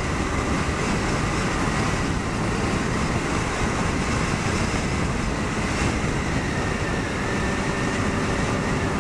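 Honda Varadero 125 V-twin motorcycle under way: a steady rush of wind and road noise over the microphone, with the engine's drone underneath.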